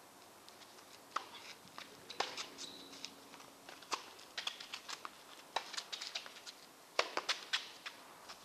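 Tennis ball struck by rackets and bouncing on the court during a rally: sharp knocks about a second apart, with fainter clicks between them.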